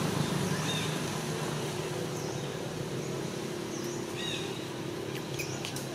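Steady outdoor background noise with a low hum underneath, and a few short, faint high chirps scattered through it.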